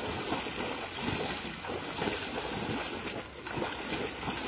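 Splashing and sloshing of several people wading through shallow, muddy paddy-field water, an irregular run of splashes.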